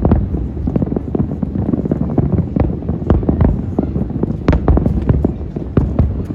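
A fireworks display going off: an irregular rapid string of bangs and sharp pops, over a low rumble of wind on the microphone.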